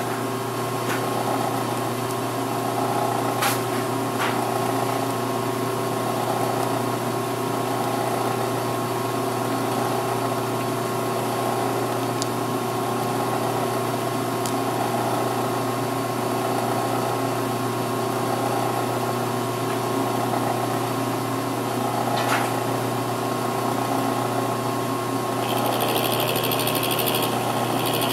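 Milling machine running with a steady hum, with a few light clicks; near the end a higher whine joins in.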